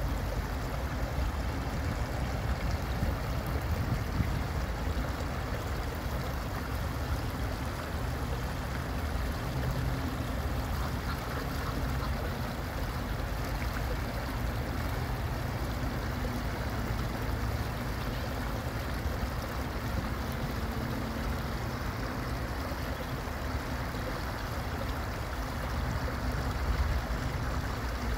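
Water running steadily over a small rock cascade into a pond, with a steady low rumble underneath.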